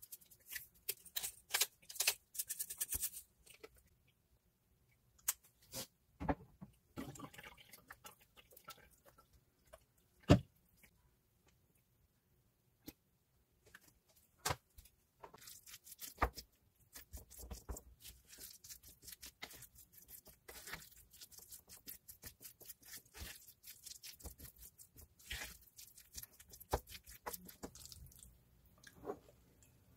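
Seasoning shaker shaken over the bowl with quick rattling clicks, then a wooden spoon stirring and mashing guacamole in a wooden bowl: faint wet squishing and scraping, with one sharp knock of the spoon about ten seconds in.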